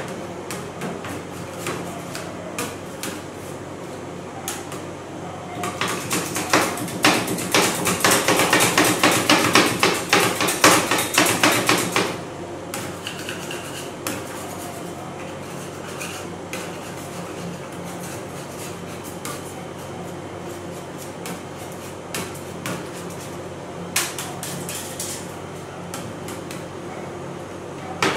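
Two metal spatulas chopping and scraping on a steel ice-cream cold plate, working sapodilla fruit into the ice cream base. Scattered taps and scrapes give way to a fast, loud run of chopping from about six to twelve seconds in, all over a steady low hum.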